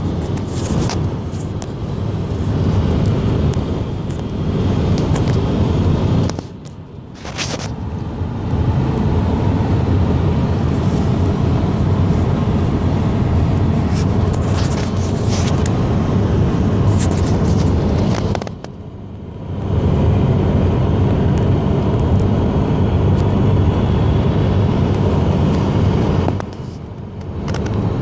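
Road and engine noise inside a moving car's cabin: a steady low rumble that drops away briefly three times.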